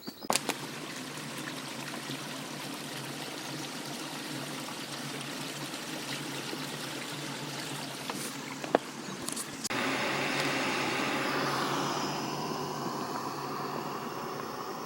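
Water trickling and flowing in a small stream, a steady rushing sound with a click about nine seconds in. The sound changes abruptly about ten seconds in to a brighter, louder rush that gradually eases.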